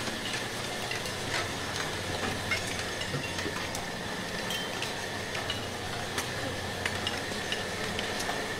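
Steady low hum of running mine machinery with a faint constant high whine, under a continuous crackle and scattered sharp ticks.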